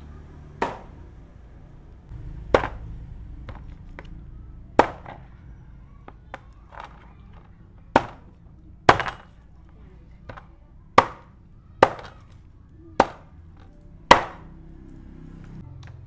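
Knife chopping on a cutting board: about nine hard, irregular strikes a second or two apart, with a few lighter taps between them.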